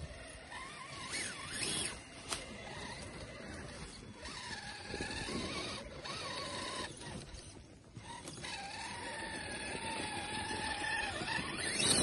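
Traxxas TRX-4 scale RC crawler's electric motor and gearbox whining as it climbs, the pitch rising and falling with the throttle.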